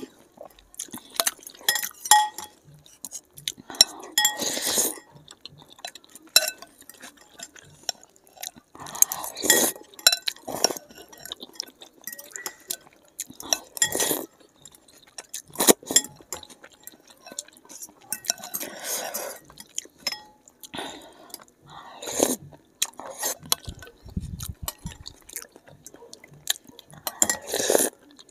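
Forks and spoons clinking and scraping against glass bowls, with repeated short bursts of noodle soup being slurped and chewed as two people eat thukpa fast.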